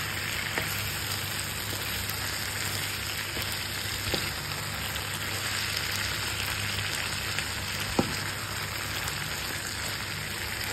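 Beef, onions, carrots and peppers sizzling steadily as they fry in a pan, with a few light clicks and one sharp tap about three-quarters of the way through.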